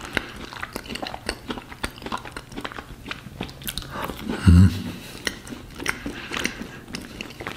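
Close-up mouth sounds of a person chewing a bite of chocolate-coated banana on a soft sponge-cake base: many small moist clicks and smacks. About halfway through comes one brief low 'mm' hum.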